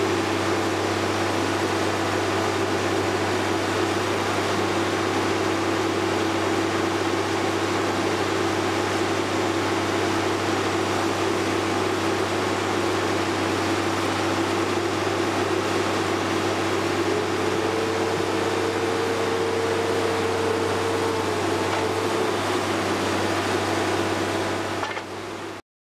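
Sierra RB5000 logger baler running, its Cummins 5.9-litre six-cylinder diesel and machinery giving a loud, steady drone. A higher steady tone joins for a few seconds about two-thirds of the way through. The sound cuts off abruptly near the end.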